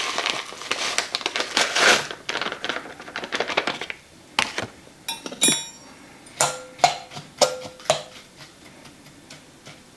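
A packet of dry onion soup mix rustling as it is shaken out into a glass bowl. Then, from about four seconds in, a fork clinks against the glass bowl about eight times as the mix is stirred, some clinks ringing briefly.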